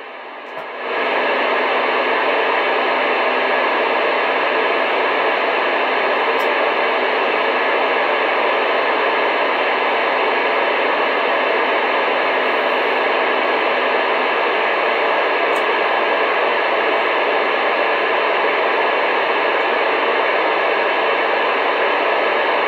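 Radio receiver's speaker giving a steady hiss of static with no one transmitting, starting about a second in. A faint low hum sits under it until about halfway through.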